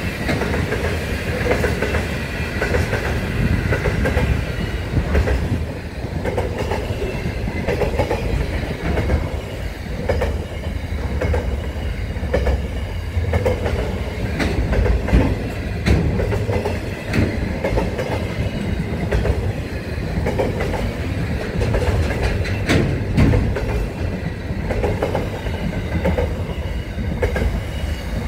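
Long freight train of tank and container wagons passing at speed: a steady heavy rumble of steel wheels on rail, with a regular clicking beat from the wheels about once a second and a few sharper knocks.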